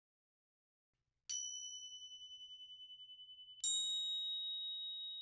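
Two crotales (antique cymbals) struck with a mallet, about a second and then three and a half seconds in, each giving a high, pure bell-like note. The notes ring on and slowly fade with a slight wavering, and the second note is a little higher than the first.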